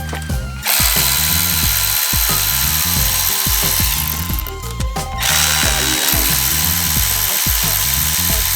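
Milwaukee M12 12-volt cordless ratchet, the brushed (non-brushless) model, running its motor in two steady bursts of about three seconds each with a thin whine, over background music.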